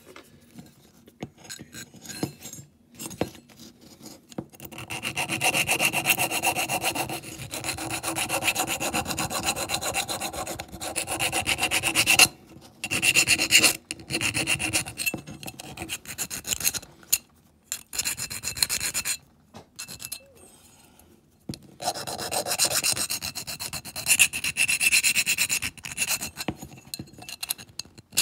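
Hand file rasping back and forth on the cut metal edges of a diecast toy van's wings, smoothing off sharp edges. The filing comes in bouts of quick strokes, stopping briefly a few times.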